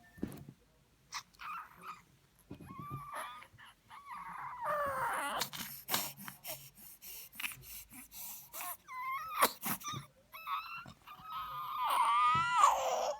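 Whining vocal yawns. A whine bends up and down a few seconds in, and a longer one near the end slides down in pitch. Light clicks and taps fall between them.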